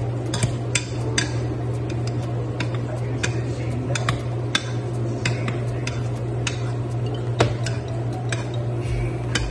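Hand potato masher clacking against the bottom and sides of a metal pot while mashing, sharp irregular clicks a few times a second, over a steady low hum.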